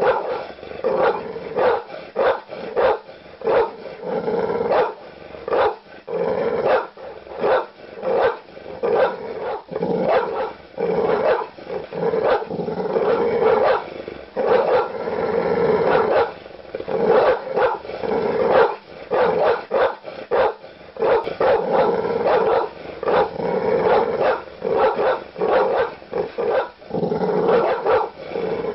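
Large dogs barking aggressively with deep woofs, the barks coming rapidly and continuously, several a second at times, with growling between them.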